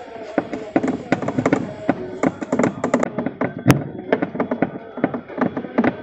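Screwdriver driving the mounting bolts of a new gearbox into a twin-tub washing machine: quick, irregular clicks and taps of tool on metal and plastic, with one sharp click about three and a half seconds in.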